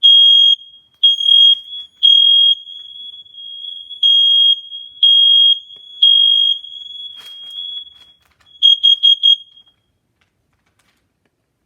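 Combination smoke and carbon monoxide alarm sounding its test cycle with a loud, high piezo beep: two groups of three beeps, the smoke-alarm pattern, then four quick short beeps near the end, the carbon monoxide pattern. A sharp click comes about seven seconds in.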